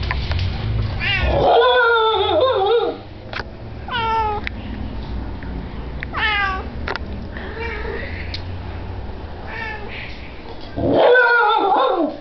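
Shiba Inu yodelling: a series of wavering, howl-like calls. Two long, loud calls come about a second and a half in and near the end, with shorter calls between them that slide down in pitch.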